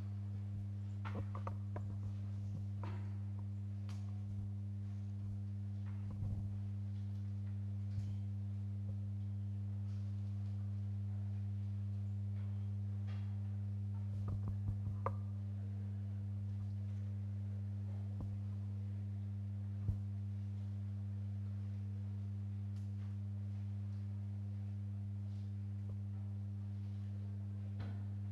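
Steady low electrical hum, one low tone with its overtones, under a few faint knocks and clicks, the sharpest a single click about twenty seconds in.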